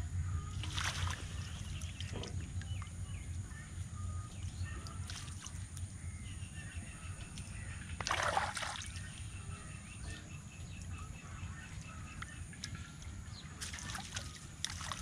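Water sloshing and splashing around a mesh ring-net fish trap being handled in shallow water, with several short splashes, the loudest about eight seconds in, and fish thrashing inside the trap near the end.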